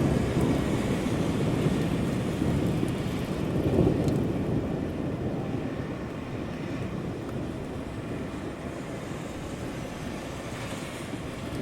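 Steady rain with a low rumble of thunder, loudest near the start and again about four seconds in, then slowly dying away.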